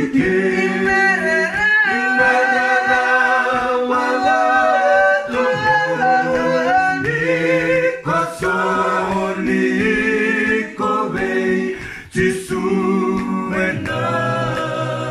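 A cappella singing: several voices in harmony without instruments, with brief pauses about eight and twelve seconds in.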